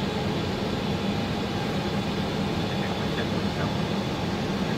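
Steady cockpit noise of an Airbus A321 in flight: an even low drone of airflow and engines with no breaks.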